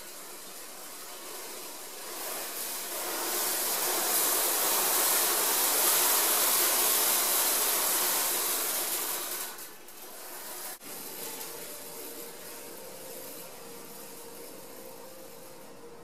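A spinning bundle of metal shavings rasping against a rusty metal plate: a hissing scrape that swells about two seconds in and stays loud through the middle. About ten seconds in it drops away to a quieter hiss with a faint steady tone and a single sharp click.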